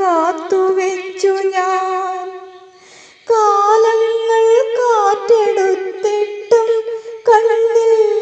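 A woman humming a slow melody: long held notes with gliding turns between them. The humming dies away about two and a half seconds in and starts again just after three seconds.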